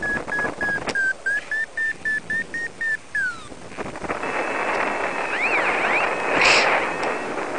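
Paragliding variometer beeping quickly, about five short beeps a second, its pitch stepping slightly up and ending in a falling glide about three seconds in: the lift tone of a climb in a thermal. Wind then rushes over the microphone, with a brief louder gust near the end.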